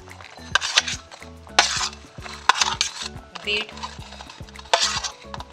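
Metal spoon scraping and clinking against a stainless steel plate as chopped onion and grated beetroot are pushed off it into a steel bowl: a run of sharp clicks with several short scraping rasps.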